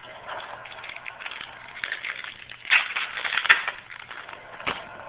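Foil trading-card pack wrapper crinkling and rustling as a pack is opened, loudest about three seconds in, with a sharp click and then a knock near the end.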